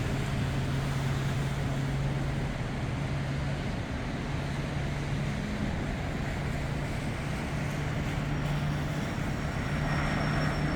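Eclipse 500 light jet's twin Pratt & Whitney Canada PW610F turbofans running, a steady rushing noise over a low hum, with a thin high whine coming in about eight seconds in.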